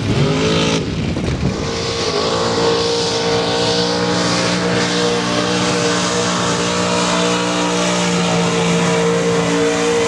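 Mud bog truck's engine revving up about two seconds in, then held at steady high revs as the truck runs through the mud pit.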